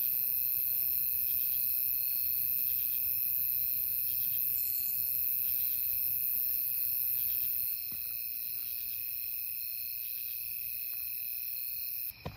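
Night insect chorus of crickets and other insects: several steady high-pitched trills layered together, one of them pulsing rapidly, easing slightly about eight seconds in.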